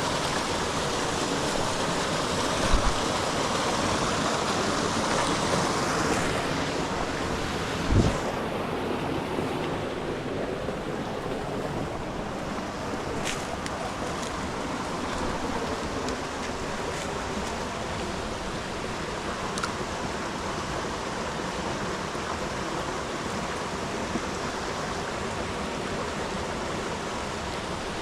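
Creek water rushing steadily, with a soft thump about 3 seconds in and a louder one about 8 seconds in.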